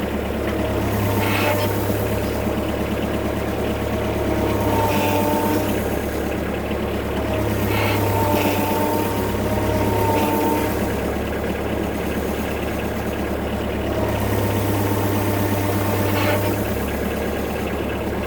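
Bobcat skid-steer loader engine running steadily under load while it pulls a chained sawmill over, its low note shifting every few seconds, with a few brief knocks.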